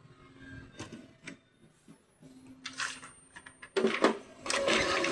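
Epson L3210 inkjet printer mechanism working: a few clicks, then a steady low hum, then short loud whirring bursts from the carriage and feed motors near the end.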